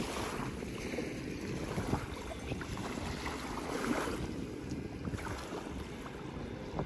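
Wind blowing on the microphone at a lake shore, a steady low rumble, with small choppy waves lapping at the water's edge.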